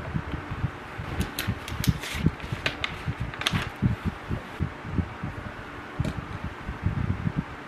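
Electric fan running, its air stream giving uneven low rumbling pulses, with a few light clicks scattered through the first four seconds and once more near six seconds.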